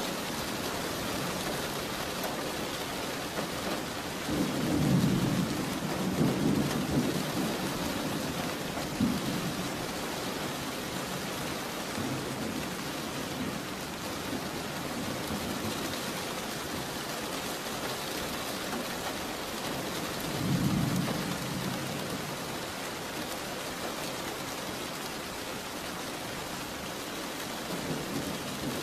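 Steady rain with rumbles of thunder: a long roll about five seconds in, a short one near nine seconds, and another near twenty-one seconds.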